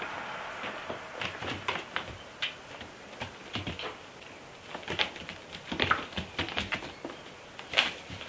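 A cat's paws tapping and scuffing on foam puzzle floor mats as it chases and pounces at a ribbon wand toy: irregular light clicks and taps, coming thicker later on, with one sharper knock shortly before the end as the cat leaps at the ribbon.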